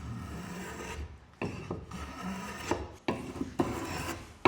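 Japanese hand plane (kanna) drawn along a wooden edge in three long strokes, shaving off wood to rough out a rounded profile.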